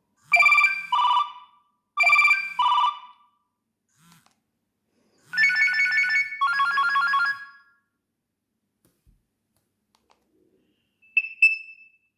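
Nokia 3120 mobile phone playing a built-in electronic ringtone. It trills in two short bursts, then two longer trills, and gives one short beep near the end.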